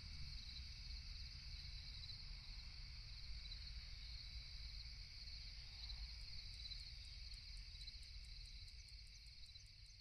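Faint, steady chirring of insects over a low rumble, with a faint quick ticking joining in about halfway through.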